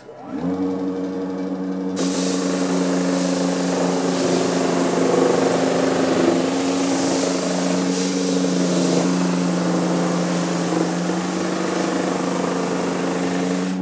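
Essex Silverline drum floor sander running with a steady electric-motor hum. About two seconds in, a loud, even hiss joins as the spinning sanding drum is lowered onto the plywood and starts sanding.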